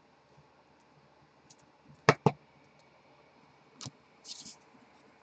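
Baseball trading cards being handled and flipped: two sharp clicks close together about two seconds in, a lighter click near the end, then a short scraping swish of cards sliding.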